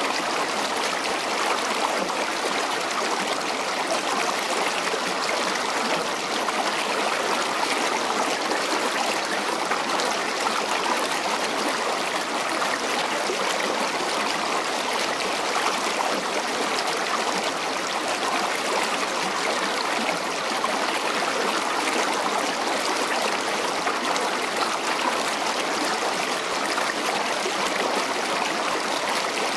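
Waterfall cascading and splashing over rocks: a steady rush of water, mostly high with little deep rumble.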